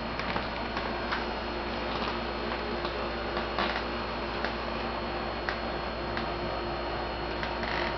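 Scattered light clicks and ticks, roughly one a second and unevenly spaced, over a steady hum, from a cat nosing and pawing at a towel on a wooden floor.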